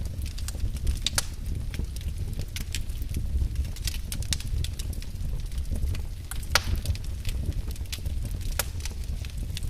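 Wood fire in a fireplace crackling: irregular sharp pops and snaps over a steady low rumble of the burning fire, with one louder pop about six and a half seconds in.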